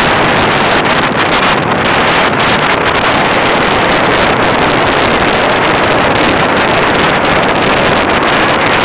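Loud, steady rushing of wind across the microphone, with no clear engine note.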